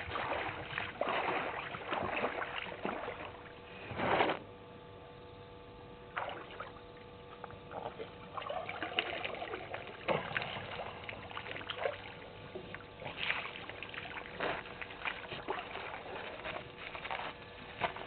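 African elephant drinking at a waterhole: irregular splashes and trickles of water as it draws water up its trunk and pours it into its mouth, with the loudest splash about four seconds in.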